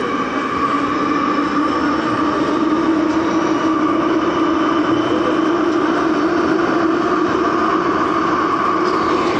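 Daejeon Metro Line 1 train running through a tunnel: steady wheel-on-rail and motor noise with a low hum that climbs slowly in pitch as the train gathers speed.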